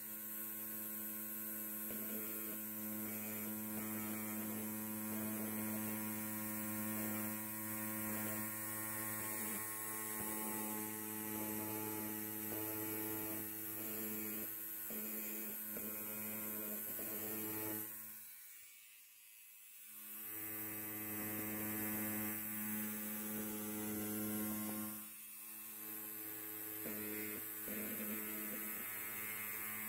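Electric hair clipper buzzing steadily at one pitch, with a raspy edge. The buzz dies away for about two seconds around two-thirds of the way through, then returns, and dips briefly again soon after.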